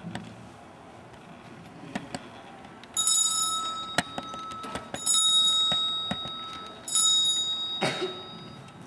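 A small temple bell struck three times, about two seconds apart; each stroke rings high and clear and slowly fades. There is a dull knock near the end.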